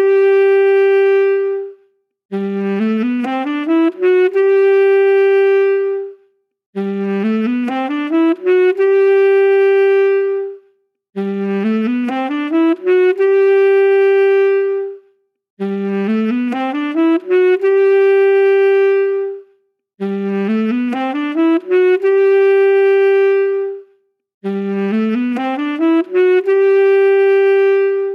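Saxophone playing the same short phrase over and over, about every four and a half seconds: a quick rising run of notes that settles on a long held note, then a brief gap before the next.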